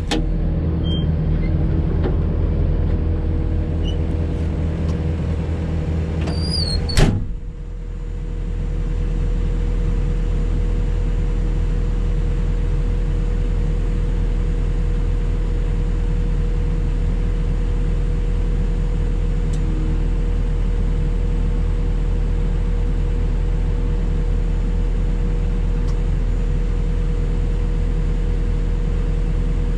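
An engine running steadily. About seven seconds in there is a brief, sharp, loud sound, after which the engine runs on evenly.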